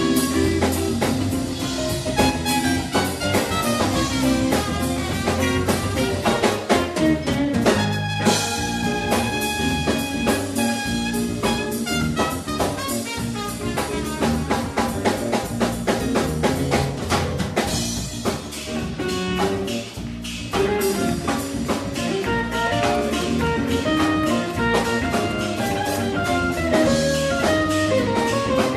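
Live band playing a funky jazz tune: trumpet lead over electric guitar, bass guitar and drum kit.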